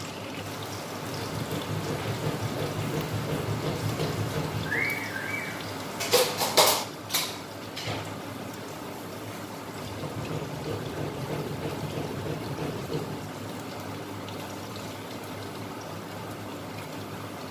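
Chop suey vegetables simmering in a wok, a steady bubbling. A quick run of sharp clicks and knocks about six seconds in is the loudest moment.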